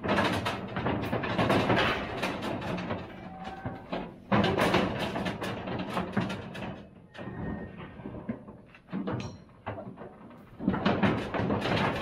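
Cattle clattering into a metal stock trailer: irregular banging and knocking of hooves on the trailer floor and bodies against steel gates and panels.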